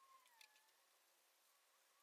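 Near silence, with a faint tone sliding downward and a soft click in the first half second.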